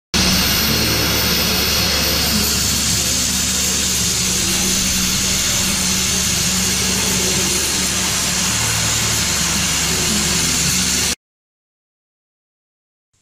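Automatic oxy-fuel cutting torch cutting through steel plate: a loud, steady hiss of the gas jet with a low steady hum beneath, stopping abruptly about eleven seconds in.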